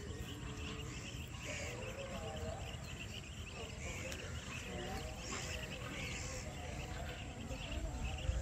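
Wetland ambience: insects and birds chirping continuously over a steady low rumble of wind on the microphone.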